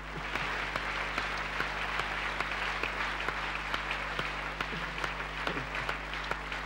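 Large seated audience applauding: many hands clapping together at a steady level, in response to the punchline of a humorous speech.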